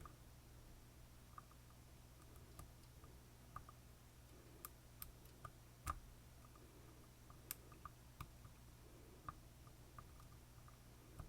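Faint, irregular small metallic clicks and ticks from tools working in an Assa Twin Combi lock cylinder, with one sharper click about six seconds in, over a low steady hum.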